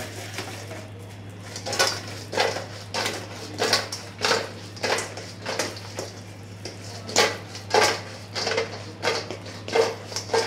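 Rhythmic crunching of a crisp fried duck wing being chewed, about one and a half crunches a second, starting about two seconds in, pausing briefly midway, then resuming. A steady low hum runs underneath.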